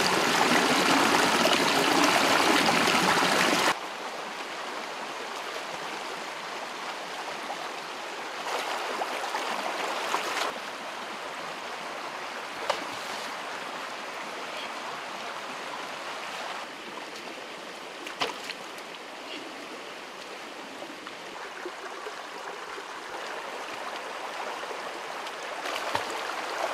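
Small cascade of stream water splashing over boulders, loud for the first few seconds. It then drops to a quieter, steady rush of a rocky stream, with a few short clicks.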